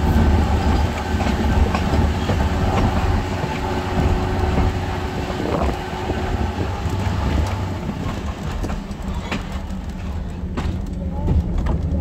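Antique train running along the rails, heard from inside the carriage: a steady low rumble with scattered clicks and rattles from the wheels and car body.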